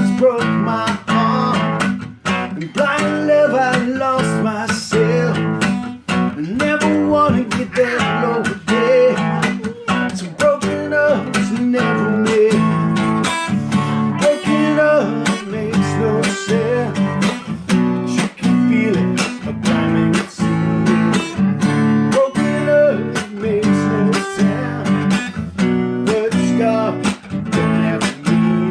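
Acoustic guitar playing an instrumental break in a slow song, steady strummed chords under a picked melody line.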